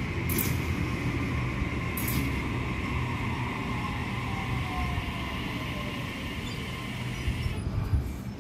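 A Sydney Trains Waratah double-deck electric train running along the platform with a steady rumble of wheels on rail and a steady high whine. A fainter whine falls slowly in pitch through the middle, and there are two short hisses in the first two seconds.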